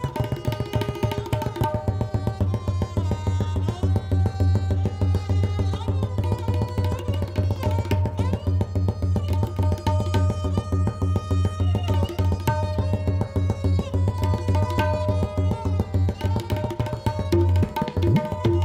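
Tabla played solo: fast, dense strokes on the dayan and bayan, with the bayan's deep bass resonance sounding steadily under the rolls.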